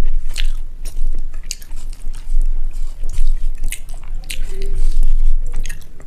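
Close-miked mukbang eating of rice and egg curry: wet chewing with frequent sharp mouth clicks and smacks, over a steady low rumble.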